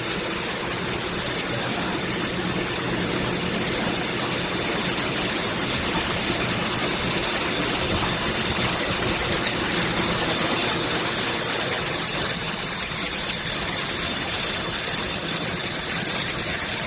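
Automatic drinking-straw packing and bundling machine running steadily: a dense, even mechanical noise with a low hum underneath.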